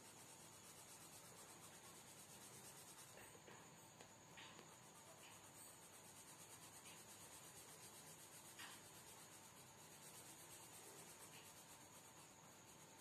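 Faint scratching of a green colour pencil shading on sketchbook paper, over a steady background hiss.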